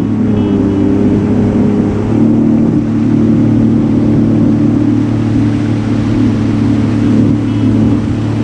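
Sea-Doo personal watercraft engine running under way across the water. The engine note shifts about two seconds in, then holds steady.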